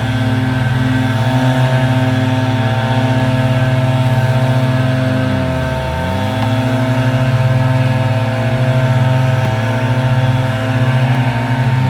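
Background music of sustained synthesizer chords, with a brief swooping dip in pitch about halfway through and again near the end.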